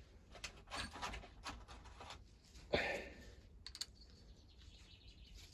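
Faint clicks and scrapes of a tool working at a hedge trimmer's housing while trying to reach a deep T25 Torx screw, with a louder scraping knock about three seconds in.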